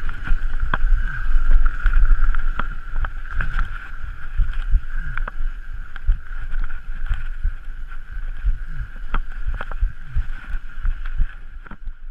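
Mountain bike riding fast down a rough trail: wind rumbling on the microphone, frequent knocks and rattles from the bike over bumps, and a steady high-pitched buzz throughout.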